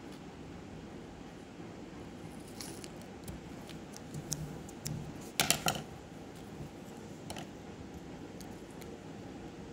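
Scissors and a paper sticker roll being handled: scattered small clicks and paper rustles over a faint steady background, with a quick run of sharp clicks about halfway through.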